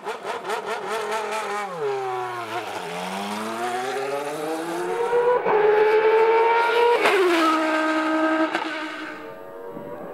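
Formula One race car engine revving high, falling in pitch, then climbing steadily as the car pulls away. About seven seconds in the note drops sharply and then holds level. A sports car runs alongside it.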